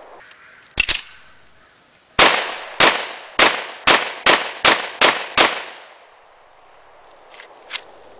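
CZ 52 pistol firing 7.62x25 Tokarov rounds while its new barrel is broken in: a single shot about a second in, then a quick string of eight shots, the pace quickening. Two light clicks follow near the end.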